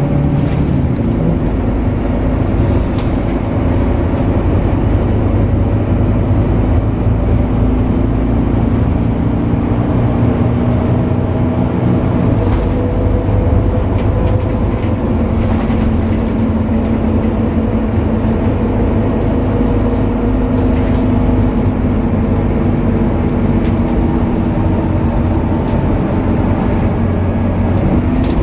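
Scania DC9 9-litre six-cylinder diesel of a Scania K94UB bus heard from inside the passenger cabin, running under way with its ZF five-speed automatic. The engine note changes about a second in and again around twelve seconds in, and a few brief knocks come through over the steady running.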